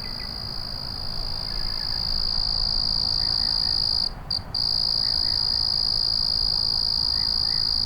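Crickets trilling in one continuous, high, steady chorus that breaks off twice, briefly, about four seconds in. Faint short lower chirps sound now and then beneath it.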